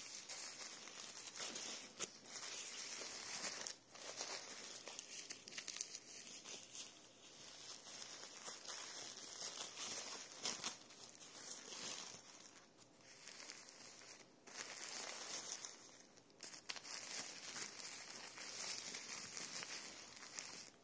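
Plastic-backed adult diaper crinkling and rustling as hands handle and unfold it, coming and going in uneven stretches with a few sharp crackles.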